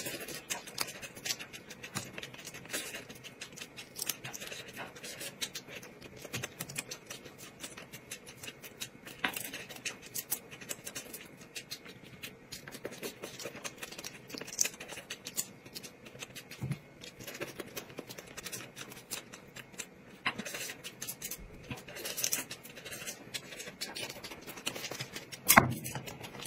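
Close-up eating sounds: chewing and crunching with a steady stream of small clicks and crackles, and one louder knock near the end.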